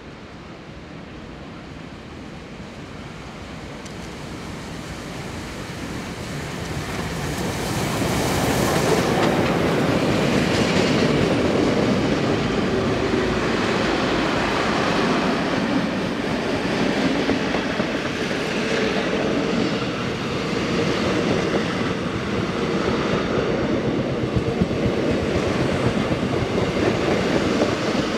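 Passenger train approaching and then running past at close range. The sound grows over the first eight seconds or so, then settles into a steady noise of carriage wheels on the rails as the cars go by.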